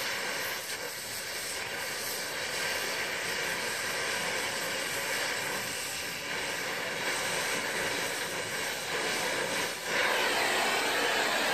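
Oxy-acetylene welding torch flame hissing steadily as it melts bailing wire into a rusty muffler, a little louder about ten seconds in.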